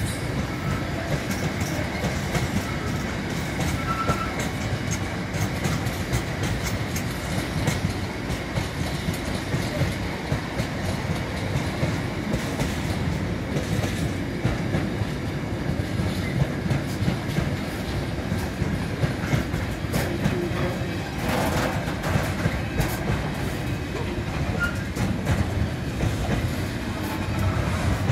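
Container freight wagons rolling past close by: a steady rumble of steel wheels on rail with a run of clicks and knocks from the wheels over rail joints.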